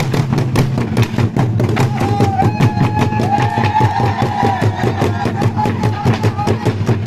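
Traditional Burundian drums beaten in a fast, steady rhythm by a drumming troupe. Partway through, a voice rises over the drums with a long held call.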